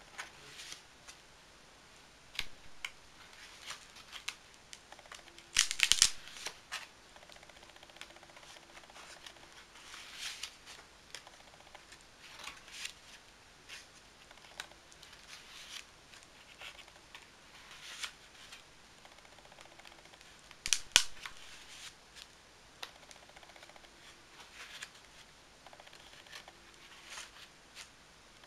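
Pages of an art journal, painted with gesso and watercolour, being turned one after another by hand: scattered paper rustles and soft crackles, loudest about six seconds in and again around twenty-one seconds.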